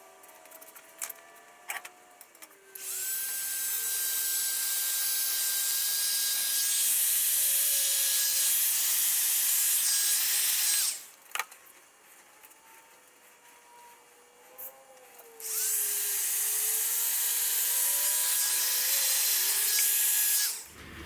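Handheld heat gun running twice, about eight seconds and then about five, a steady blowing hiss with a whine that rises as the fan motor spins up at each switch-on, shrinking heat-shrink tubing over soldered wire joints. A few small clicks and handling knocks come before the first run.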